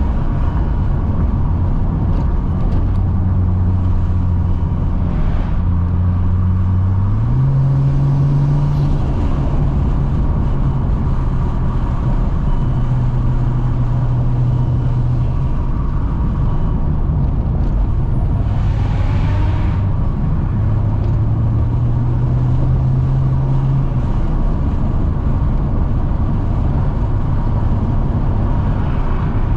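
Car engine and road noise at a steady cruise, heard from inside the car: a steady low drone whose pitch steps up about a quarter of the way in, then eases back down in stages as the throttle changes.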